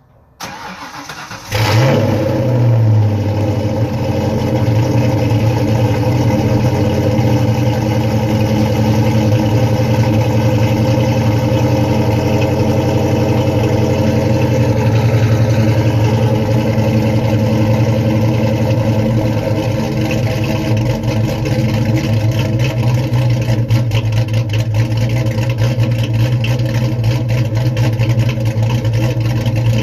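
Cold start of a 1994 Mustang SVT Cobra's 5.0-litre V8 fitted with a Steeda 19 aftermarket camshaft: the starter cranks for about a second, the engine catches and flares up briefly, then settles into a loud, steady fast idle through the dual exhaust.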